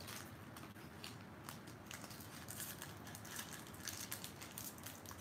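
Foil wrapper of a Pokémon trading-card booster pack crinkling and rustling in the hands as it is pulled from the box and handled, a run of faint, irregular crackles that grows busier about halfway through.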